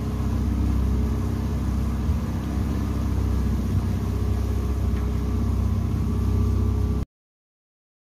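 A small boat's motor running steadily while the boat moves along; the sound cuts off suddenly about seven seconds in.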